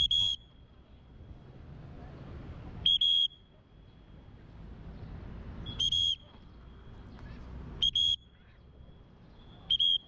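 Short high-pitched beeps on one steady tone, repeating every two to three seconds with a quick double beep near the end, each lingering faintly after it. Faint low city rumble underneath.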